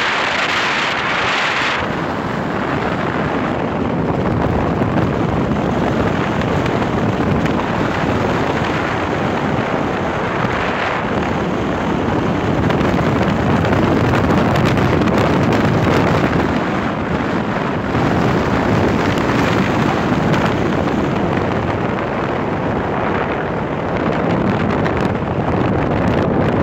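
Wind rush buffeting the microphone over the steady tyre and road noise of a car driving along a highway.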